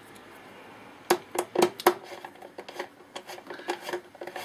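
Hand screwdriver driving a screw into a plastic project-box panel: a run of small clicks and knocks starting about a second in, loudest over the next second, then lighter ticks.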